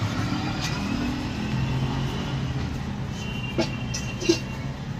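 Street traffic: a vehicle engine running with a steady low hum, and a few sharp clicks, the loudest about four seconds in.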